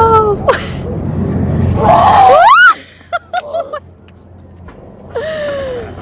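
A frightened woman's scream that rises sharply in pitch about two and a half seconds in, followed by a few short gasps and a falling cry near the end. A steady low rumble underneath cuts off suddenly just after the scream.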